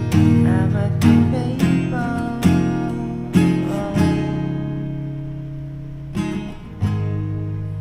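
Acoustic guitar strumming the song's closing chords: a run of strums in the first four seconds, then two more strums near the end, the last chord left ringing and slowly dying away.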